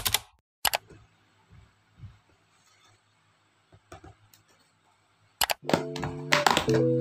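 Near quiet for most of the stretch, with two sharp clicks at the start. About five seconds in, loud rattling clatter breaks in, and background music with long held notes follows.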